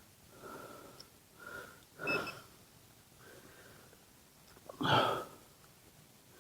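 A man breathing heavily in several separate breaths, with a whistling wheeze. The loudest breath comes about five seconds in.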